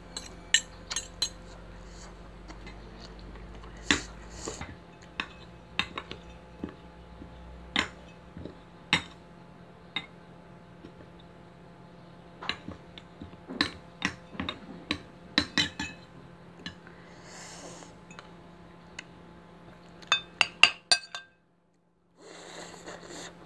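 Metal spoon and fork clinking and scraping against ceramic bowls and a plate while eating. The clinks come at irregular intervals, with a quick run of them near the end.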